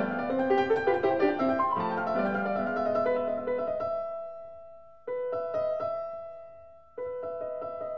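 Background piano music: a flowing run of notes, then a held chord that fades away and is struck again twice.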